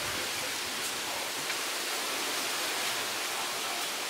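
Steady rushing hiss of background noise, with a faint short tick about one and a half seconds in.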